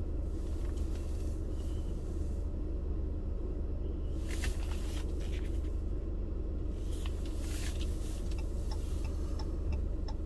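Steady low rumble of a car idling, heard from inside the cabin. There are a few scattered clicks, and near the end a quick, regular ticking starts.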